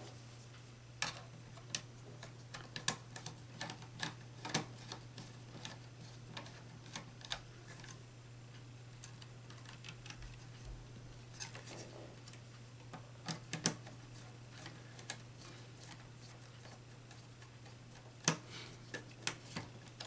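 Scattered small clicks and taps of a screwdriver and wire ends being worked into the screw terminals of a 24 V DIN-rail power supply, with a low steady hum underneath.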